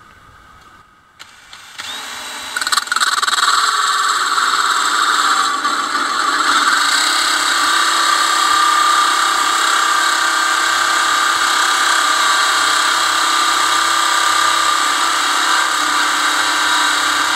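Cordless drill spinning an abrasive cut-off disc and grinding through a steel bolt. After about a second of quiet it spins up in a couple of steps, then grinds steadily.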